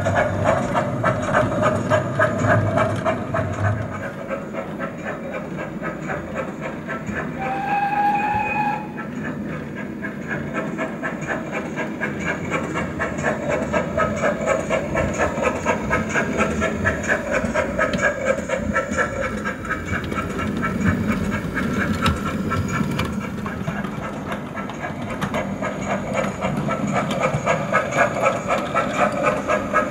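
Model GWR 57XX 0-6-0 pannier tank locomotive in O gauge, its Zimo DCC sound decoder playing a steady beat of steam exhaust as it runs with a train of wagons, with a short whistle about eight seconds in. Model wheels click on the track.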